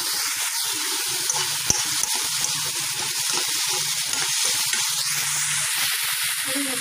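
Chopped tomato and onion sizzling in hot oil in a kadhai while a steel spatula stirs them, with a sharp tap of the spatula about a second and a half in.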